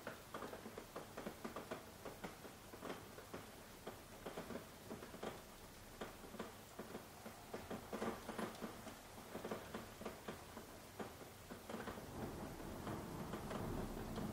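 Light rain: single drops tapping irregularly, several a second, over a faint hiss. It grows fuller and louder near the end.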